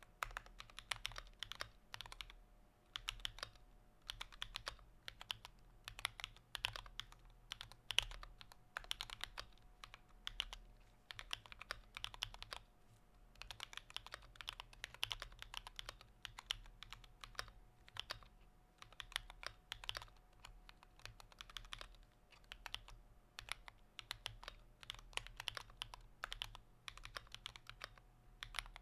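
Typing on a computer keyboard: fast runs of key clicks broken by short pauses every few seconds, over a faint steady hum.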